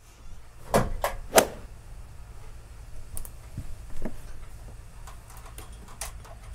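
Three sharp knocks close together about a second in, then quieter scattered knocks and rustling over a low steady hum, the sound of someone handling things and moving about close by.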